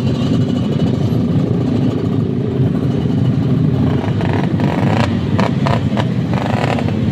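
Engine exhaust running with a steady low rumble. From about four seconds in, a string of sharp pops, roughly two a second, like firecrackers: the exhaust is exploding, or backfiring.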